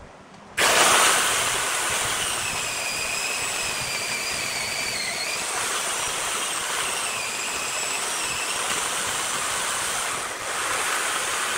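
Chainsaw cutting into a block of wood. It starts abruptly about half a second in and then runs steadily with a high whine that dips in pitch twice, with a brief drop in level near the end.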